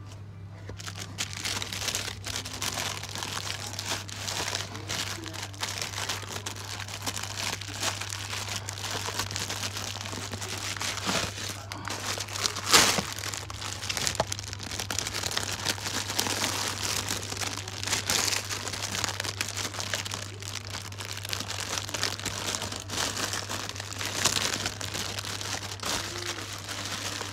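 Clear plastic wrapping crinkling and rustling as shrink-wrapped eyeshadow palettes are handled in a cardboard carton, with one sharp louder crackle about 13 seconds in. A steady low hum runs underneath.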